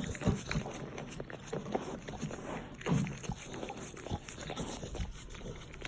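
Irregular small sounds from a pit bull and her newborn puppies during whelping, scattered short clicks and brief rustling noises.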